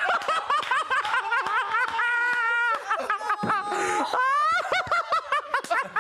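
Several people laughing hard together: rapid bursts of laughter from a few voices, with long high-pitched laughing squeals in the middle and one rising in pitch a little after four seconds.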